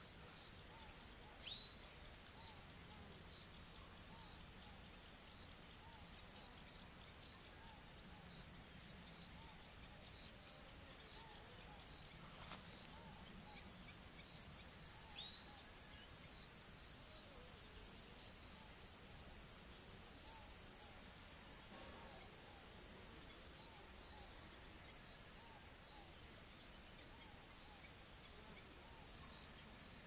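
Crickets and other insects chirping and trilling together: a steady high-pitched insect drone with a regular, evenly repeating chirp beneath it. The highest drone drops out near the end.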